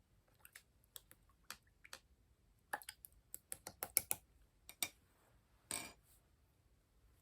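Clear slime being pressed and worked by hand, giving a run of sharp, irregular clicking pops that come thickest in the middle, with one longer squelch near the end.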